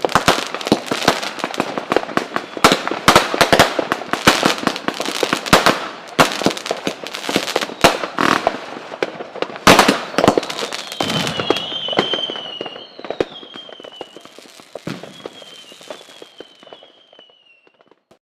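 Fireworks going off in a dense barrage of bangs and crackling for about ten seconds, then thinning out and fading. A high whistle glides slowly downward over the last several seconds.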